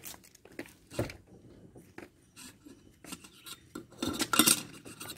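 Light metallic clinks and knocks of a new metal kettle being handled and fiddled with, a few scattered taps and then a louder burst of rattling about four seconds in.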